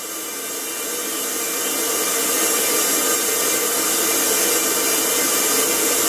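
Air-driven vacuum pump hissing steadily, with its air compressor running, as it pulls a car's AC system down toward minus 29 inches of vacuum. It grows louder over the first few seconds, then holds steady.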